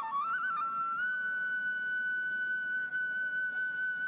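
Background music: a melody on a single instrument. It runs through a few quick notes, then holds one long steady note from about a second in.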